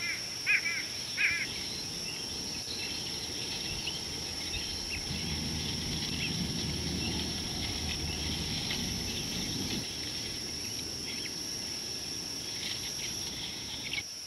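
Bush ambience: a steady high insect drone runs throughout, with several short bird chirps in the first second or so and fainter bird twittering after. A low rumble comes up for a few seconds in the middle.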